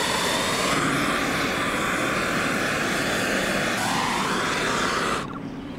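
Handheld kitchen blowtorch burning with a steady hiss as its flame browns the top of a sabayon; it stops suddenly about five seconds in.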